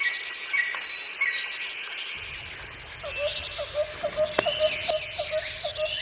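Tropical forest ambience: birds chirping and whistling with falling calls, over a steady high insect drone. About halfway through, a low, short note begins repeating about three times a second.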